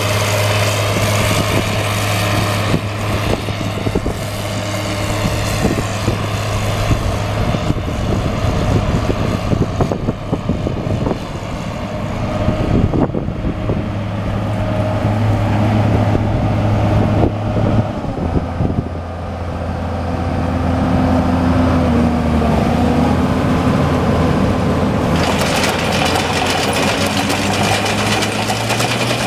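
1997 Case IH 2188 combine's diesel engine running while the machine drives and turns, a steady low drone with rattle. The engine note drops about eighteen seconds in, and the sound turns louder with more hiss and rattle near the end as the machine is close.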